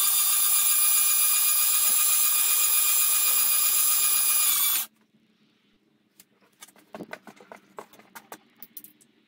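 Starter motor spinning over a rebuilt Rover V8 engine to prime its oil system and fill the hydraulic tappets: a loud, steady whine that cuts off suddenly after about five seconds. Then a few faint clicks and knocks.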